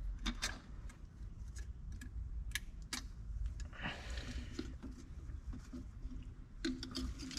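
Scattered light clicks and taps of tools and parts being handled at the wheel during brake bleeding, most of them in the first three seconds.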